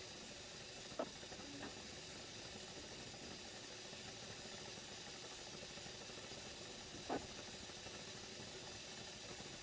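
Faint steady hiss with two short clicks, one about a second in and one about seven seconds in.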